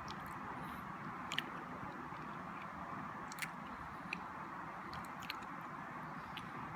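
A person chewing chocolate slowly as it melts in the mouth, close to the microphone. About six soft, sharp mouth clicks and smacks are spread over a faint steady hiss.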